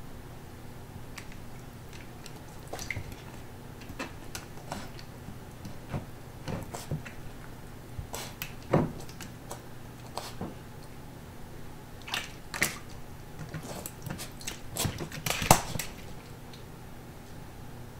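Corgi puppy playing at her plastic water bowl: irregular clicks and knocks of the bowl and pen, with louder clatters about halfway and a cluster of the loudest near the end.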